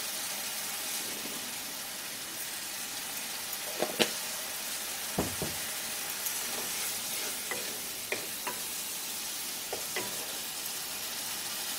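Spiced onion-tomato masala sizzling and bubbling in hot mustard oil in a kadai as it is fried down. A spatula knocks and scrapes against the pan now and then, more often in the second half.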